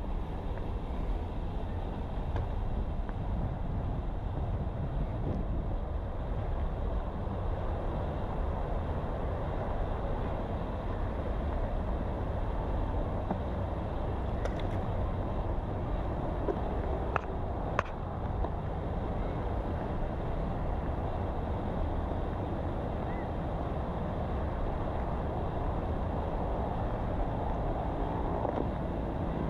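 Steady low rumbling outdoor background noise, with two short sharp clicks a little over halfway through.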